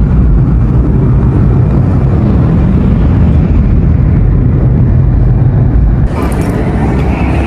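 Fighter jet's engines, a loud deep rumble heard through the terminal's glass wall; about six seconds in the low rumble eases slightly and the sound turns a little brighter.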